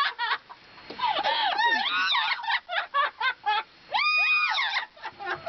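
A parrot mimicking human laughter: chuckling sounds, a run of quick short 'ha' notes in the middle, then one long high call that rises, holds and falls about four seconds in.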